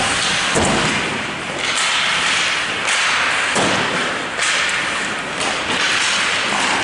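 Ice hockey play along the rink boards: several sharp thumps of the puck, sticks and players hitting the boards and glass, over steady rink noise.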